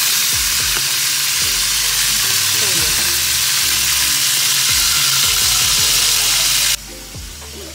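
Chicken pieces frying in hot oil in a pan: a loud, steady sizzle that cuts off abruptly near the end.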